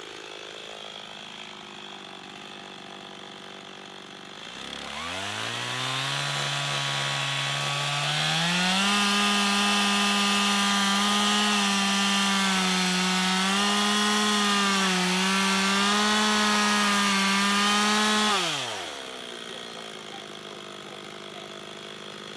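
Stihl two-stroke chainsaw idling, then revved up about four seconds in and held at full throttle for some fourteen seconds as it cuts into a stump. Its pitch dips and recovers slightly under load, then drops quickly back to idle near the end.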